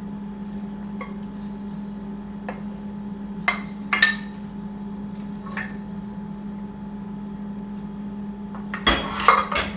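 A utensil and a small cup knocking and scraping against a stainless-steel saucepan as thick ketchup is scooped out and poured into a funnel, with a few scattered clinks and a cluster of knocks near the end. A steady low hum runs underneath.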